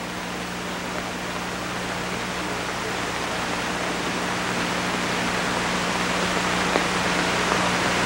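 Steady hiss with a low hum underneath, slowly growing louder.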